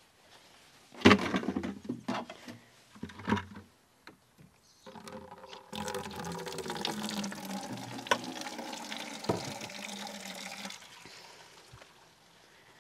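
Water running from a rain barrel's spout into a plastic watering can, a steady filling splash for about six seconds that then stops. Before it, a few loud knocks and clatter as the can is handled.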